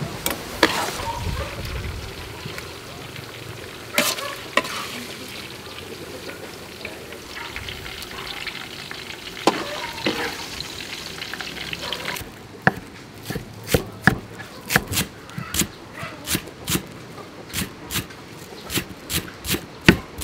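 A large pot of rice soup bubbling at the boil while a metal ladle stirs and now and then knocks against the pot and wok. About twelve seconds in it changes to a cleaver chopping spring onions on a wooden cutting board, about three chops a second.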